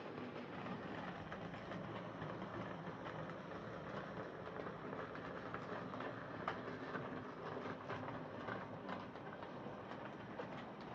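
Hornby Class 14xx OO gauge model tank locomotive running along layout track: a steady whirr from its motor and wheels, with scattered light clicks and one sharper click about six and a half seconds in. It is freshly serviced and runs without the drumming noise it was sent in for.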